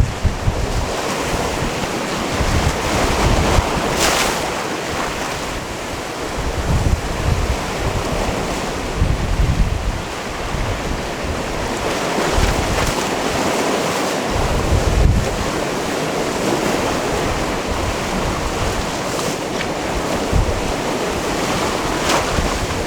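Sea waves washing onto a rocky shore in a steady wash of surf, with one sharper splash about four seconds in. Wind gusts buffet the microphone with a low rumble.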